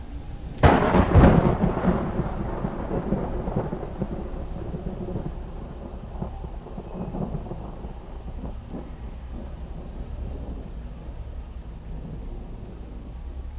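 Thunderclap, sudden and loud about a second in, rolling away over the next few seconds, then a steady low rumble and hiss.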